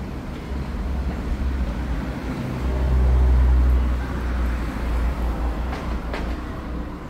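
Low rumble of a passing vehicle, building to its loudest about three seconds in and then fading.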